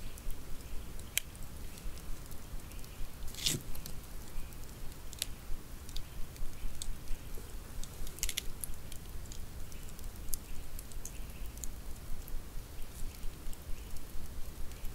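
Wood campfire crackling, with irregular sharp pops and snaps; the loudest come about three and a half seconds in and again a little after eight seconds.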